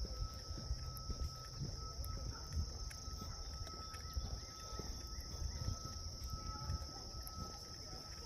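Steady high-pitched insect chorus, with a fainter steady tone lower down, over an irregular low rumble on the microphone.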